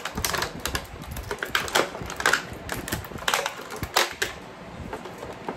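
Clear plastic packaging bag crinkling and crackling in the hands as it is handled, a run of irregular sharp crackles with a few louder ones.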